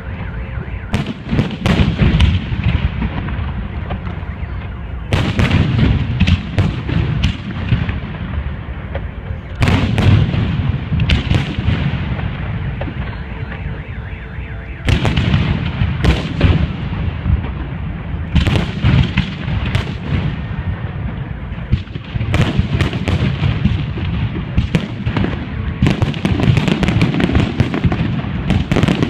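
Fireworks display: a continuous barrage of bursting shells with booms and rumble, broken by clusters of sharp cracks every few seconds, thickest near the end.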